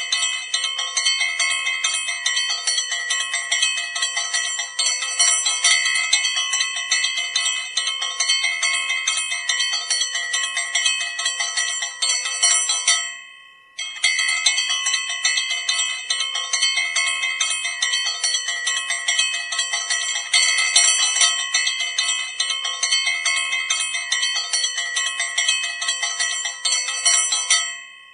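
Brass puja hand bell rung rapidly and continuously, its clapper striking many times a second over a steady ringing tone. About halfway the ringing dies away, then starts again abruptly and dies away again near the end.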